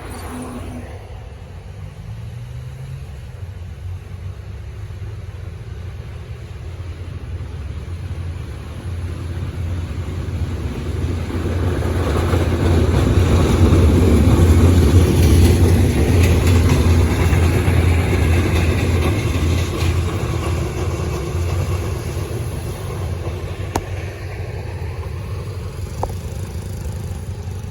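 A train passing a level crossing: a low rumble that builds to its loudest about halfway through, then slowly fades away.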